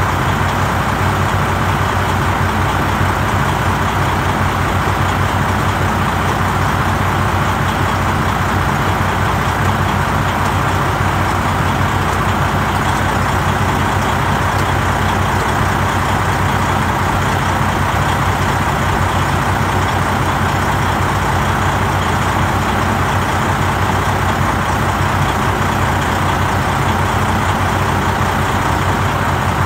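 Heavy diesel truck engine idling steadily, an even unbroken rumble.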